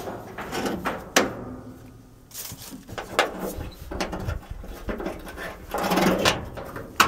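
Sharp metal clicks and knocks, a couple of seconds apart, from the steel hood of a Kaiser Jeep M715-series truck being latched down after closing, with a longer scraping rustle near the end.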